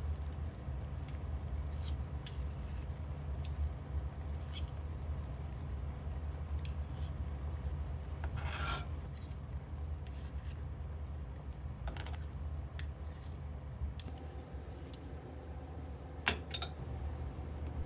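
A pot of broth simmering on an induction hob, with scattered small pops and ticks over a steady low hum. About eight and a half seconds in there is a brief splashy rustle.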